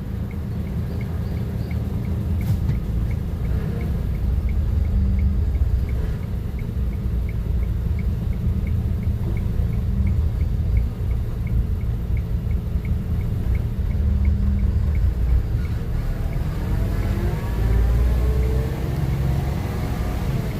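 Heavy road-paving machinery running with a steady low diesel rumble, with a faint, fast regular ticking of about three ticks a second over most of it. Near the end the engine pitch rises and falls.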